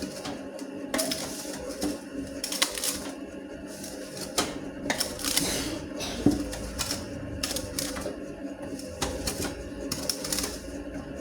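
Homemade dough mixer with a washing-machine gearbox running: a steady motor hum with irregular clicking and knocking throughout.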